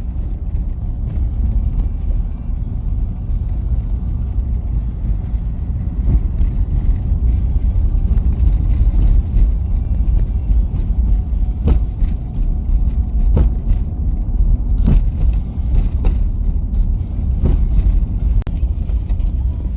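Car driving, a steady low rumble of road and engine noise, with a few short knocks in the second half.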